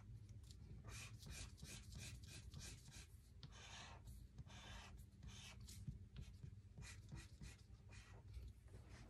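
Faint scratching of a felt-tip marker drawing lines on paper, many short strokes in quick succession.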